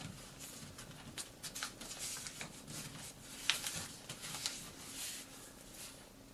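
A sheet of origami paper being folded and creased by hand: irregular crinkles and rustles, with a sharper crackle about three and a half seconds in.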